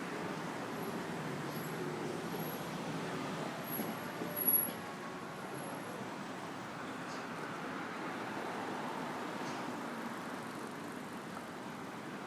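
City street traffic ambience: a steady wash of passing road vehicles, with one brief louder sound about four and a half seconds in.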